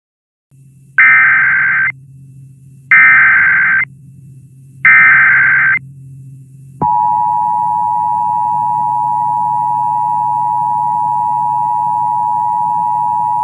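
Emergency Alert System SAME header: three high-pitched warbling data bursts of about a second each, two seconds apart, over a faint hum. About seven seconds in, a long steady attention tone begins, announcing a new weather warning.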